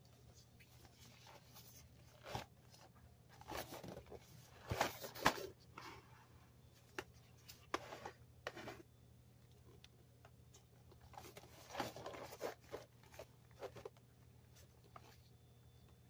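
Cardboard granola bar box being handled and turned in the hand: faint scattered rustles, scrapes and clicks, in two bursts a few seconds in and again about two-thirds of the way through.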